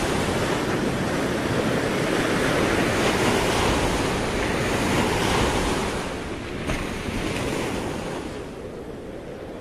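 Sea waves washing on a shore, with wind; the rush builds to its loudest about three to five seconds in, then draws back and quietens from about six seconds on.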